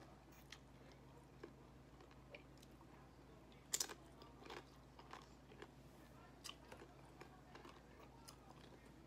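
Faint crunching of a tortilla chip with salsa being chewed, as scattered crisp crackles with the loudest crunch about four seconds in.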